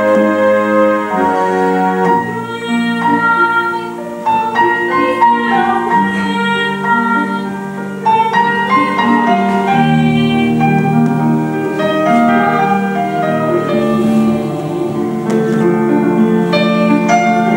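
Music from a stage musical number: piano and keyboard accompaniment playing sustained chords under a melody line.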